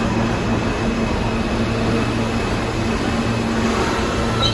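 New York City subway train running along the station platform: a steady rumble with a constant low hum. The wheels start to squeal right at the end.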